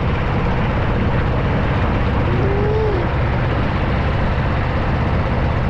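Motorboat engine running steadily under way, with the constant rush of the boat moving through the water.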